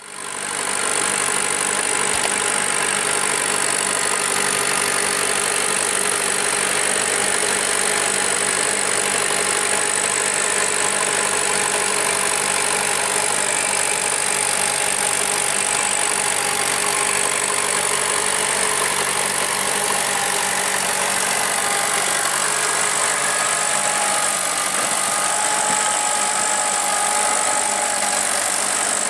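Massey Ferguson 185 tractor's four-cylinder diesel engine running steadily under load as it drives a rotary tiller through a flooded rice paddy. The sound fades in over the first second.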